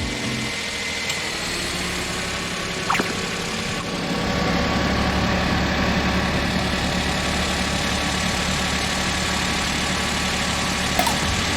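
Suzuki Alto's small three-cylinder engine idling steadily, running for an air-conditioner additive charge. About four seconds in, the engine note deepens and grows a little louder, and two light clicks sound.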